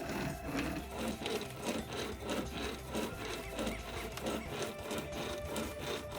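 A rope chainsaw's chain being pulled back and forth through a tree limb by its two ropes: chain teeth rasping through the wood in a quick, steady rhythm of strokes.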